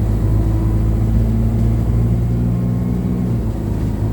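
ADL Enviro200 single-deck bus's diesel engine running steadily, heard from inside the passenger cabin as a low, even drone.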